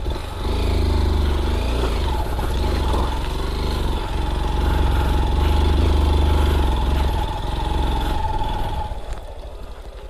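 Honda XR190 single-cylinder motorcycle engine running on a rough off-road track, rising and falling in loudness, then dropping away about nine seconds in.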